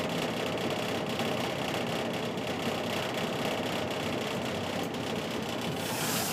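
Forced-air furnace running with a steady mechanical hum. Near the end a brief hiss comes in.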